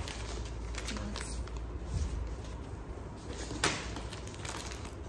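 Hands rummaging through packaged items in a cardboard box: packets crinkling and cardboard knocking, with one sharp knock about three and a half seconds in, over a low rumble.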